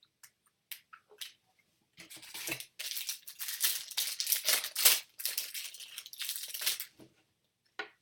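Foil wrapper of a jumbo pack of baseball cards being torn open and crinkled, after a few light clicks of card handling. The crinkling starts about two seconds in and stops near the end.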